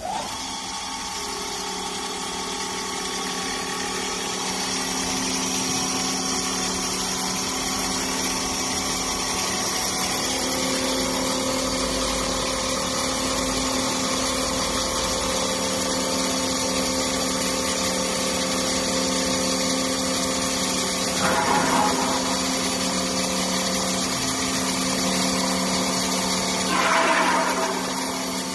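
A 4-axis CNC woodworking machine running steadily, its spindle and drives holding several steady tones over a high hiss. Two short, louder, rough bursts come about 21 and 27 seconds in.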